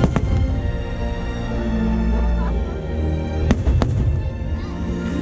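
Aerial firework shells bursting over music. There are sharp cracks just at the start and two more close together about three and a half seconds in.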